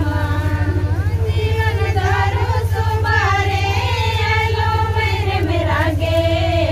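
Women and girls singing a Mundari welcome song (swagat geet) together as a group, over a steady low pulsing hum.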